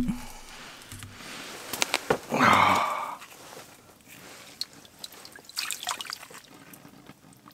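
Water dripping and sloshing in an ice-fishing hole as a hand lowers a yellow perch back in to release it, with a louder slosh a little over two seconds in and a few small drips and clicks afterwards.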